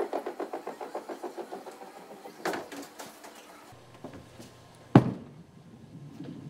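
Bowling alley sounds. A bowling ball rolls with a rhythmic rumble that fades over the first couple of seconds, then come a couple of sharp clacks. About five seconds in there is one loud, heavy thud as a bowler's ball is released onto the wooden lane.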